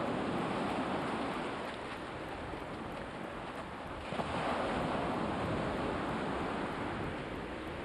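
Sea waves washing onto the shore: a steady surf noise that swells as a wave comes in at the start and again about four seconds in.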